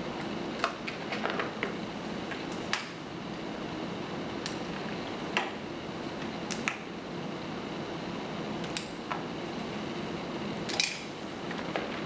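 Sharp plastic clicks and taps of a micropipette at work: a fresh tip pressed on from a tip box, the plunger clicking and the used tip ejected, about a dozen clicks spread irregularly over steady background hiss.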